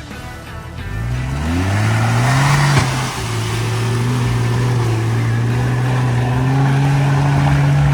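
Off-road 4x4 engine revving up, rising in pitch for about two seconds, with a sharp click near three seconds in. It then runs steadily under throttle, its pitch creeping slowly higher.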